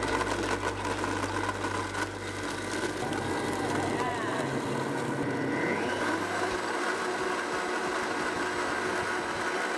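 Blendtec Total Blender Classic running its Ice Crush cycle, its motor crushing ice with strawberries and liquid into a frozen daiquiri. The deep low rumble drops away about three to four seconds in as the ice is broken down, and the motor runs on steadily after that.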